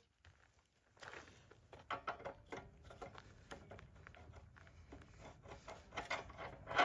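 Irregular light clicks, taps and rattles of small parts and tools being handled, starting about a second in, with no engine running.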